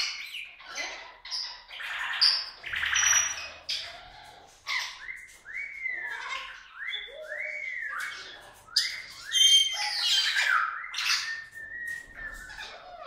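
Goffin's cockatoo squawking: harsh screeches, with a run of short rising-and-falling calls, about two a second, in the middle; the loudest screech is about two-thirds of the way in.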